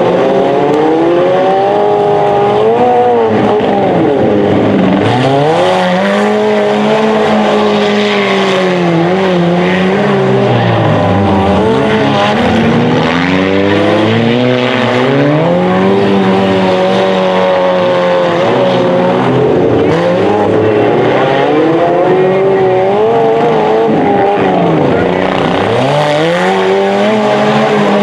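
Several front-wheel-drive stock cars' engines racing on a dirt track, their pitch rising and falling again and again as they accelerate out of and lift into the turns, often more than one engine at a time.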